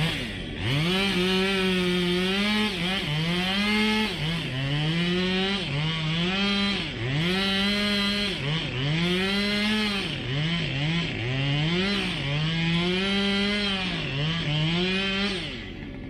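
Chainsaw cutting wood, its engine pitch dipping and recovering over and over, roughly once a second, then cutting off near the end.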